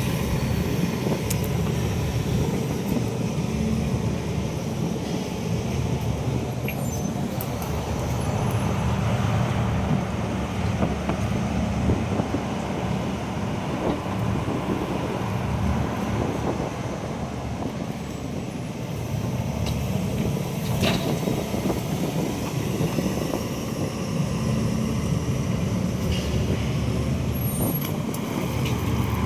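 Excavator's diesel engine running steadily, a continuous low rumble, with one short sharp click about two-thirds of the way through.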